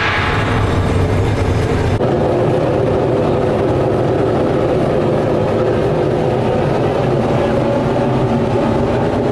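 Heavy workshop machinery running steadily, a loud mechanical rumble with a rattle. It changes abruptly about two seconds in and cuts off at the end.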